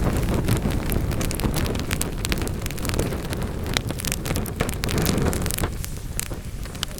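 Wood fire crackling and popping: many sharp snaps over a steady low rushing of the flames, which eases somewhat near the end.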